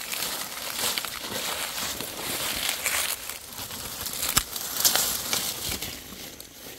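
Dry fallen leaves crunching and rustling as someone moves through the leaf litter, with a sharp click about four and a half seconds in.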